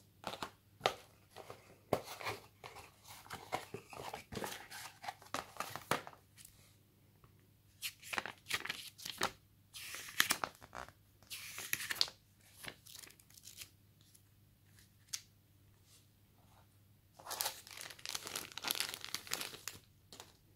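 Hands handling cardboard and paper packaging: a box and a paper manual rustle and crinkle, pages are flipped, and small taps and clicks sound in three spells with short quiet gaps between.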